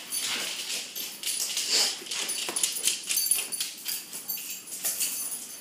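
Pet dogs whimpering as they play and jostle, with scattered light clicks and taps.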